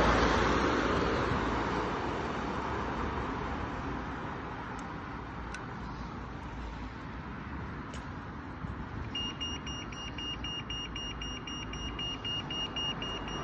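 A passing car fades away at the start over steady road traffic. About nine seconds in, a pelican crossing's audible pedestrian signal starts beeping rapidly, about four high beeps a second, the sign that the green man is showing and it is safe to cross.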